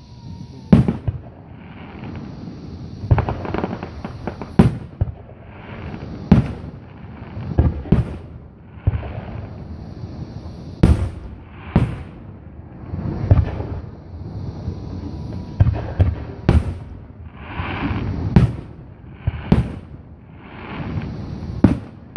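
Aerial firework shells bursting: more than a dozen sharp bangs, one every one to three seconds, with a hiss between them.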